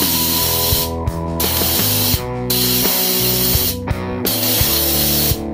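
Compressed-air siphon blow gun spraying diesel fuel over a bare engine block: a loud hiss that stops for a moment about a second in, again at about two seconds and near four seconds, as the trigger is let off. Background music with a steady beat plays underneath.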